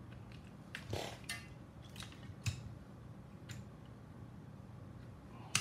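About five light, irregular metallic clicks and taps of small hand tools, pliers and a soldering iron, handling a drone flight controller in a helping-hands clamp during soldering, over a steady low hum.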